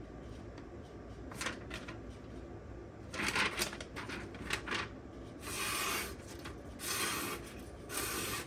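A freshly stropped knife edge is drawn in three hissing strokes in the second half, each about half a second long. Before them come a few light clicks and rustles of handling.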